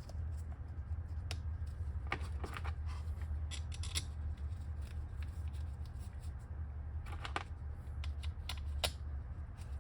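Scattered light metallic clicks and scrapes of screws and hand tools being handled while a scooter hub motor's cover is put back on, over a steady low hum.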